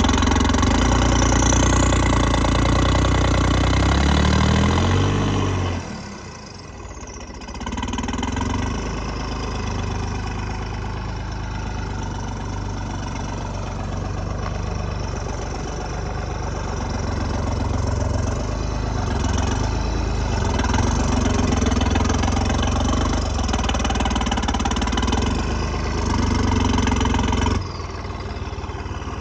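Tractor diesel engine running steadily at low speed, climbing in speed for a moment about four seconds in. The sound drops abruptly near six seconds and again near the end, with steady running in between.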